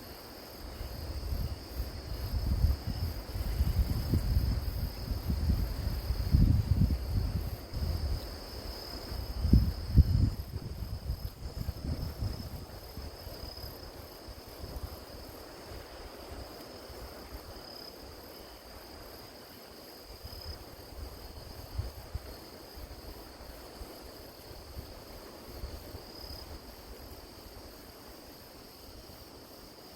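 Crickets chirring steadily in a high, even band. During roughly the first twelve seconds, low gusts of wind buffet the microphone and drown them out, then die down to a few weaker puffs.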